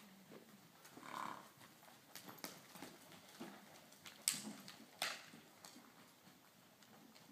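Horse loping on arena dirt: faint irregular hoofbeats with a few sharp knocks, the loudest a little over four seconds in.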